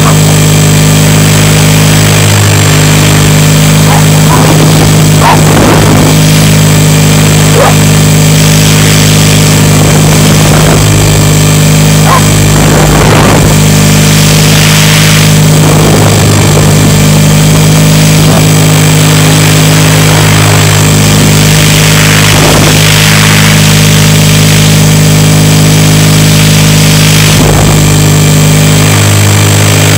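RC helicopter's motor and rotor drone heard from on board: a loud, steady hum with its pitch shifting slightly a few times, with short sharp sounds over it now and then.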